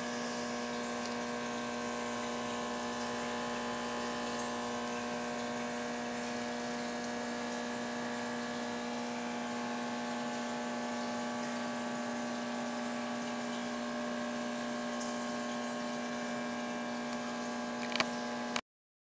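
Steady electric hum of aquarium equipment, a pump running with a faint watery hiss over it. A sharp click near the end, then the sound cuts off suddenly.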